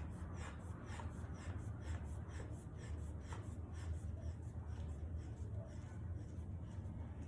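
Rubber inflation bulb of an aneroid sphygmomanometer squeezed again and again in quick succession, pumping up the arm cuff toward about 180 mmHg for a palpatory blood-pressure reading, over a steady low hum.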